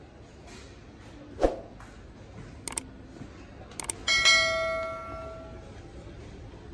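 Subscribe-button sound effect: a couple of mouse clicks, then a bright notification bell ding that rings out for about a second and a half. A single thump comes earlier, about a second and a half in.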